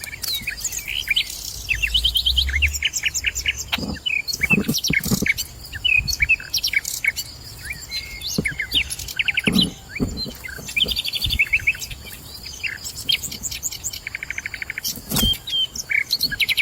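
Long-tailed shrikes calling: a busy run of short chirps and quick trills of repeated notes. A few sharp knocks break in now and then.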